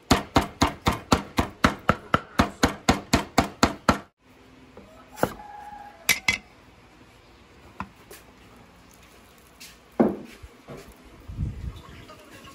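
Large kitchen knife chopping raw beef on a thick wooden chopping board, a fast even run of about four or five knocks a second that stops abruptly after about four seconds. A few single knocks of the knife on the board follow, including a double knock around six seconds in as a lime is cut, and a louder thump near ten seconds.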